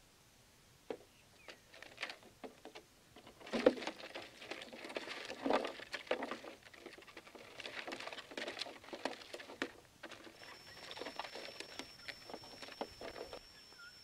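A parrot scrabbling and flapping inside a clear plastic can trap, a dense run of scratching, rustling and clicks against the plastic. A sharp knock about three and a half seconds in, the loudest sound, fits the trap's drop door slamming shut. A thin, steady high whistle joins about ten seconds in.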